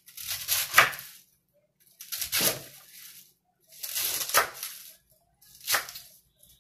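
Kitchen knife chopping cabbage on a wooden cutting board, cutting it into small squares: four bursts of cuts, about two seconds apart.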